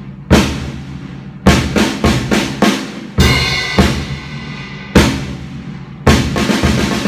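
Drum kit playing a march-style grade exam piece: separate snare and bass drum strokes in short groups, with a longer ringing stretch a little after three seconds in.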